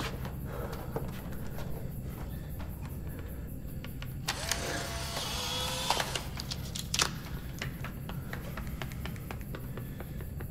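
Instant camera's small motor whirring for about two seconds, about four seconds in, as it pushes out a print, followed by a couple of sharp clicks, over a low steady drone.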